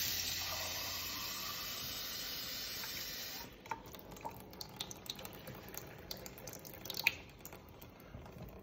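Kitchen faucet running into a ceramic mug, filling it with warm water; the flow cuts off about three and a half seconds in. A few light clicks and knocks follow.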